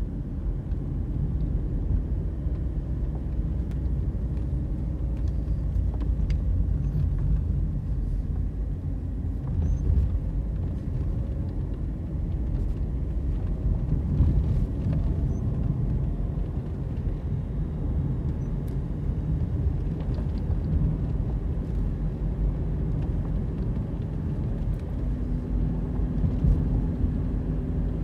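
Car driving along a paved road, heard from inside the cabin: a steady low rumble of engine and tyres, with a faint engine hum that shifts a little in pitch.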